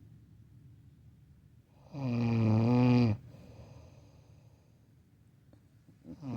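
A person deeply asleep, worn out, snoring loudly: one long, buzzing snore about two seconds in that lasts about a second, and the next snore starting near the end.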